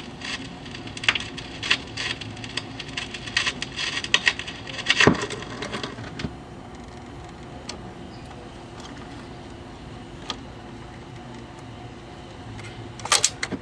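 Magnavox console record changer at the end of a record: scattered sharp clicks and clunks over a steady speaker hum, thickest in the first half, as the tonearm leaves the record and returns to its rest, with a short burst of clicks near the end.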